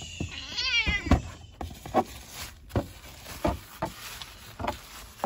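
A cat meows once, a wavering call about half a second in, followed by several scattered knocks and rustles as it steps in and out of a plastic litter box.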